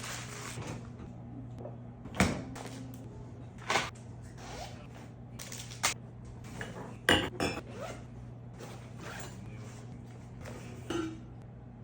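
Kitchen clatter: dishes and utensils being handled, with scattered clinks and knocks, the loudest about two seconds in and again around seven seconds, over a steady low hum.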